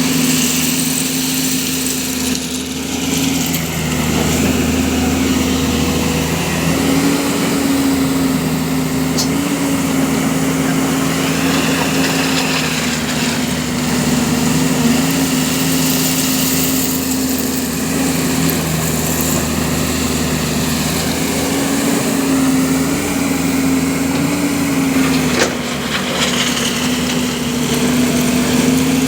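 JCB JS205 tracked excavator's diesel engine running steadily, its pitch wavering slightly now and then, with a single sharp knock near the end.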